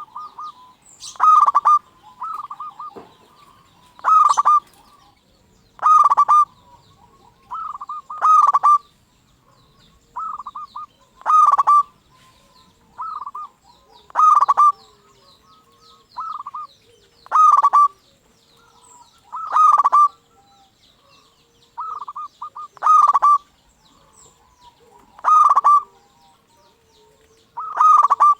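Zebra dove (perkutut) singing its repeated cooing song: a short bubbling coo phrase comes again every one and a half to two and a half seconds, with small birds chirping faintly behind it.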